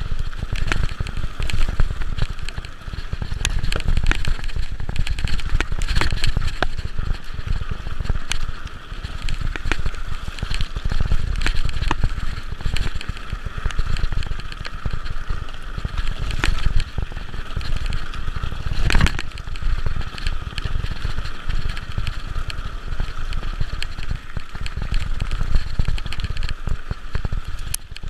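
Mountain bike descending a rough dirt trail: wind rumbles steadily on the camera's microphone while the bike clatters and knocks over bumps, with one sharp knock about two-thirds of the way through.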